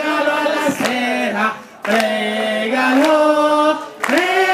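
Voices singing a chant in long held notes, a man's voice leading through a microphone, with two short breaks between phrases.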